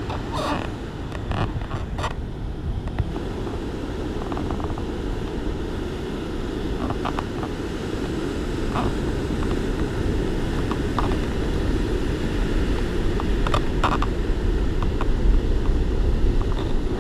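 Wind on the microphone and the sea at the shore: a steady low rumble, with a few faint short clicks.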